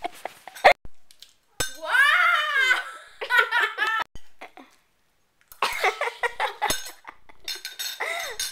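Children laughing in several high-pitched bursts, broken by a few sharp clinks.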